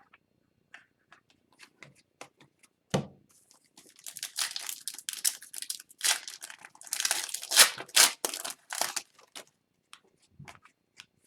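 Foil wrapper of a hockey card pack being torn open and crinkled for several seconds, with light clicks of cards being handled before it and a single sharp knock about three seconds in.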